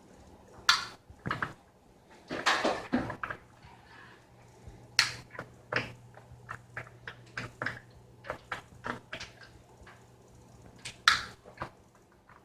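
Irregular small clicks and taps of a screwdriver and screws as the screws are taken out of a laptop's plastic bottom cover, with a quick run of clicks about two seconds in.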